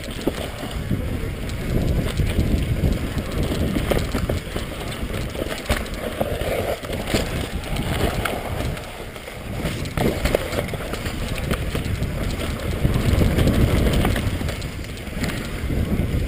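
Mountain bike riding down a dirt forest trail: a steady rumble of tyres and wind on the microphone, with the bike rattling in many sharp clicks over the rough ground.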